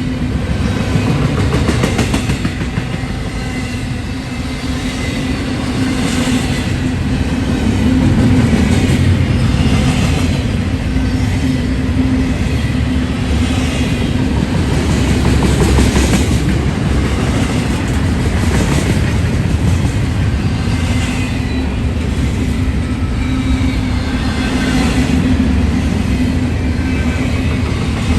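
A train rolling past, with a steady low rumble and drone and its wheels clicking over rail joints every couple of seconds.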